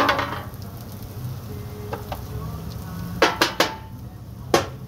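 Metal utensil knocking and clattering on a Blackstone's steel flat-top griddle: a sharp knock at the start, another about two seconds in, three quick ones a little after three seconds, and one more near the end.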